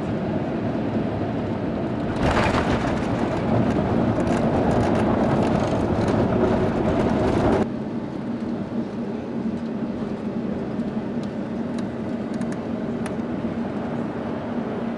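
Airbus A350 cabin noise on approach: a steady rush of engines and airflow with a constant low hum. It swells louder about two seconds in and drops back abruptly a few seconds later.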